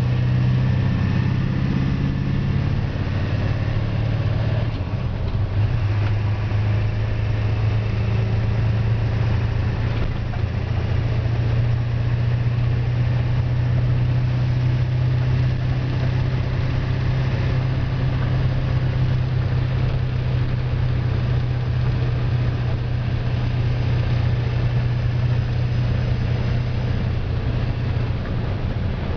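1999 International 4700 medium-duty wrecker's diesel engine running under way, a steady low drone mixed with road noise while the truck is driven.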